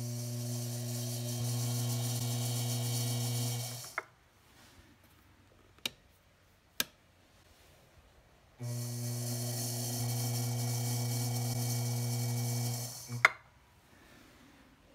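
Brent Model C potter's wheel's DC motor running with a steady hum and hiss, its belt pulley spinning, twice for about four seconds each, each run ending with a sharp click as it stops. Two single sharp clicks come in the quiet between the runs.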